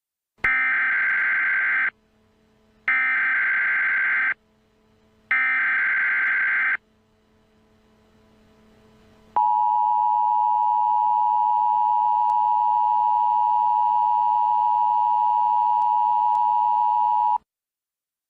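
Emergency Alert System header: three short bursts of digital data tones, each about a second and a half long, that encode the alert, then after a short gap the steady two-tone EAS attention signal, held about eight seconds and cutting off abruptly, announcing the emergency message that follows.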